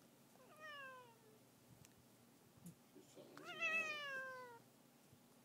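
Domestic cat meowing twice: a short meow about half a second in, then a louder, longer meow near the end, both falling in pitch.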